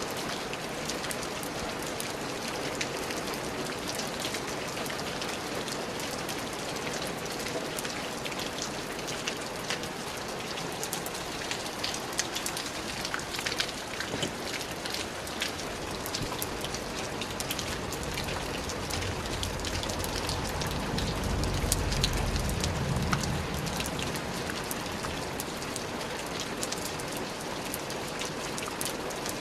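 Steady rain falling on a hard surface, with many close individual drops ticking. A low rumble swells and fades about twenty seconds in.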